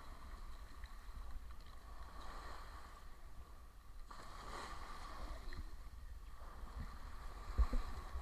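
Faint wash of shallow water over beach gravel under a low steady rumble, with a couple of dull thumps near the end.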